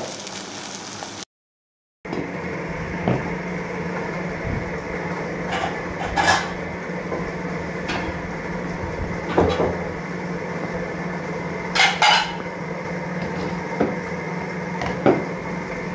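Plates and steel bowls being set down and handled on a table, giving a handful of separate sharp clinks over a steady low hum.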